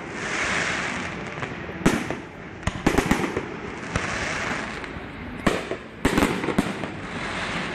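Aerial fireworks display: about six sharp bangs of shells bursting, some in quick pairs, with steady crackling hiss from glittering effects between them.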